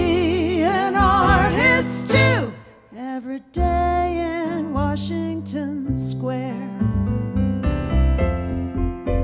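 A woman singing long held notes with vibrato over electric keyboard accompaniment. The voice stops about seven seconds in, leaving the keyboard playing on its own.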